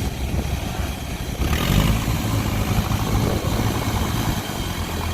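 Kubota DC-105X combine harvester's diesel engine running steadily in the rice field. There is a brief rush of noise about a second and a half in.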